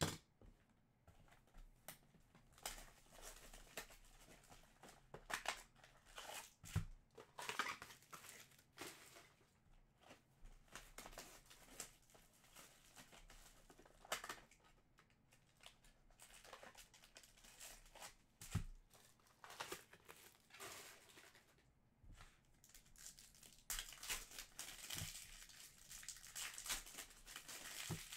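Trading-card box and pack wrappers being torn open and handled: irregular crinkling and tearing, with two dull knocks.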